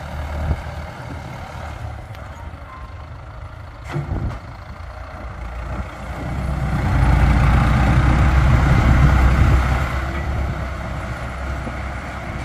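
Backhoe loader's diesel engine working as the machine pushes and levels gravel with its lowered front bucket. The engine gets much louder about halfway through, labouring for a few seconds, then eases a little.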